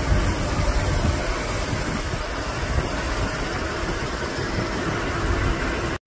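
Wind buffeting the microphone: a steady rushing noise with an unsteady, rumbling low end.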